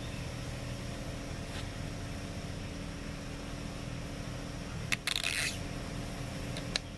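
Plastic fuel and bar-oil caps on an Echo CS355T chainsaw being handled: a sharp click about five seconds in, then a brief scraping rustle, and another light click near the end, over a steady low hum.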